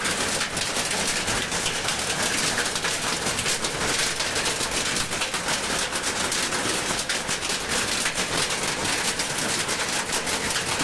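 Heavy rain mixed with hail pelting a wet concrete roof terrace: a dense, steady hiss full of small sharp ticks from hailstones striking.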